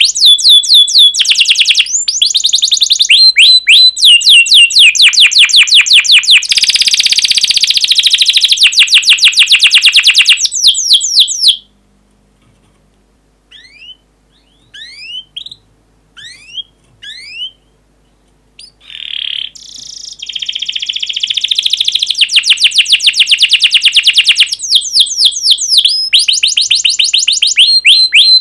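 Domestic canary singing long, fast rolls of sharp repeated chirps. Partway through it stops for several seconds with only a few faint chirps, then resumes its rapid rolls.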